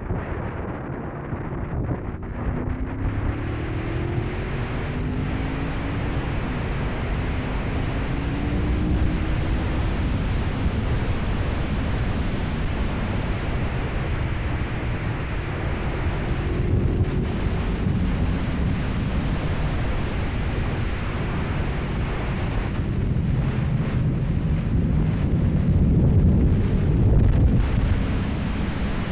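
Heavy wind buffeting on the camera's built-in microphone while riding a 1997 Honda VFR750F, with the bike's V4 engine heard faintly underneath, its pitch rising several times in the first ten seconds and again about seventeen seconds in.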